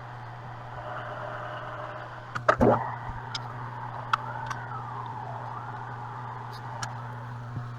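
Metal lathe running during a thread-cutting pass: a steady motor hum under a faint whine that slowly rises and falls. A sharp metallic knock with a quickly falling tone comes about two and a half seconds in, then a few short clicks.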